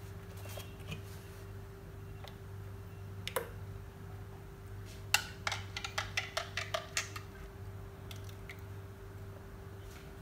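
A metal spoon stirring a glass of yeast-water and oil, clicking lightly against the glass: a few faint clicks early, then a quick run of about a dozen small clicks about halfway through. A steady low hum runs underneath.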